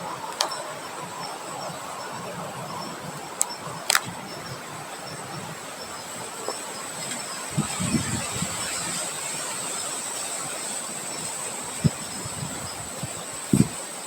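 Outdoor nature ambience of wind and rain: a steady hiss with a steady high tone and a faint pulsing chirp over it. A few sharp ticks and some short low thumps break in now and then.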